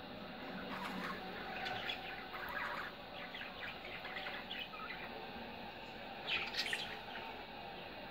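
Budgerigars chirping and chattering in short scattered bursts, with a louder cluster of calls about six and a half seconds in.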